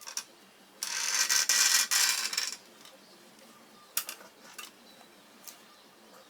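Parts of a Toshiba Qosmio G40 laptop being handled during disassembly: a rattling scrape of small hard parts for nearly two seconds, then a few separate clicks.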